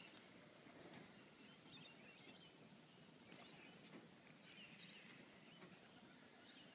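Near silence with faint bird chirps, a few scattered clusters of short high calls over low background hiss.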